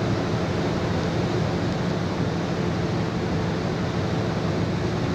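Steady rush of wind and sea on the deck of a passenger liner underway, with a low, even hum beneath it.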